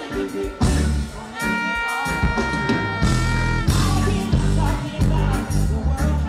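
Live reggae band music over a concert sound system, with heavy bass, a steady beat and a held melody line about a second and a half in.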